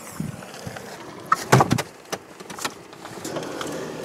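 Suzuki Ignis tailgate being opened: a cluster of sharp clicks and knocks about a second and a half in as the latch releases and the hatch lifts, then a few lighter clinks of tools being handled in a toolbox in the boot.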